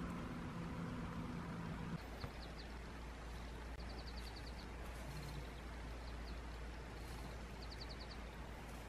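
Open-field ambience: a bird gives short, rapid high trills every second or two over a low steady rumble. A low droning hum in the first two seconds stops suddenly.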